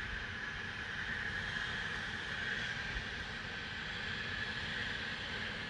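Loud, steady industrial hiss from a factory, an unbroken high-pitched rushing sound with a faint low rumble beneath it.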